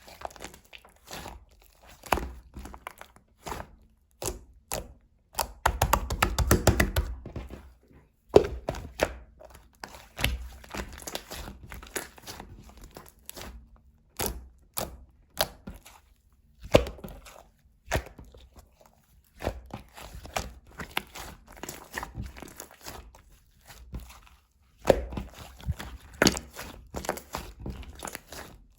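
Slime being pressed, poked and stretched by hand: a long run of irregular sticky clicks, pops and squishes, thickest about five to seven seconds in and again near the end.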